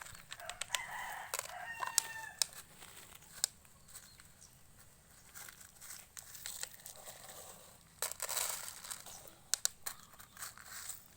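Short calls that sound like a chicken or rooster, in the first few seconds. Sharp clicks run throughout, with a rustling, crinkling noise around two-thirds of the way through.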